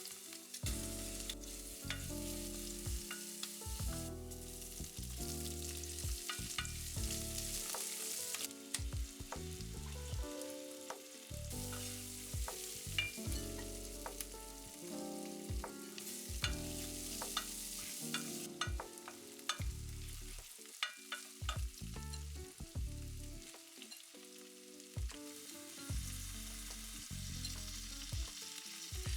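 Chopped vegetables sizzling in hot oil in a frying pan while being stirred, with scattered clicks and scrapes of the utensil against the pan.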